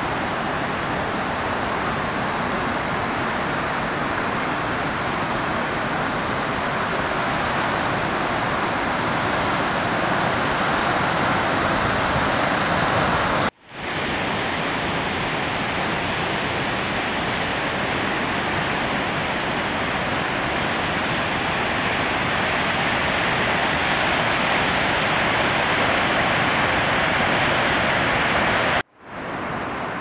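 Steady rushing of the Krimml Waterfalls, a high waterfall plunging over rock. The sound is broken by two brief dropouts, about halfway through and near the end.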